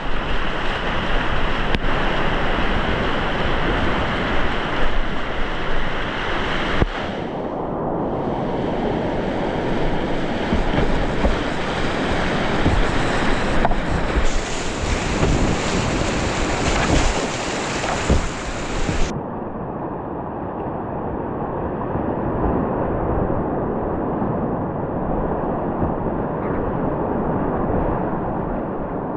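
Loud, steady rush of whitewater in a Grade 3 river rapid, heard from the kayak running it, with wind noise on the microphone. The upper hiss drops away suddenly about nineteen seconds in.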